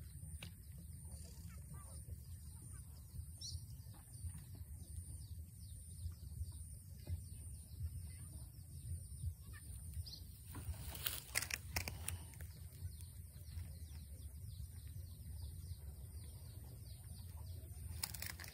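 Outdoor rural ambience: faint bird chirps over a steady low rumble, with a few sharp rustling clicks about eleven seconds in and again near the end.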